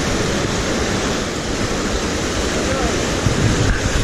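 Whitewater rushing steadily over rocks in a small rapid and waterfall: a loud, unbroken rush of water. Faint calls or voices rise over it in the second half.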